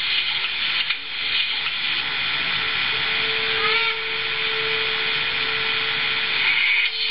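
ESU sound decoder in an HO-scale Roco BR 03.10 model steam locomotive playing its steam sounds through a small speaker: a steady hiss, with a held hum joining about three seconds in and stopping near the end.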